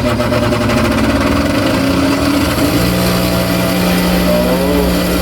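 Fujin electric sewing machine motor running with a loud, steady hum, which grows stronger a little over halfway through. This is the noise it suddenly started making; the repairer suspects a part has come loose inside.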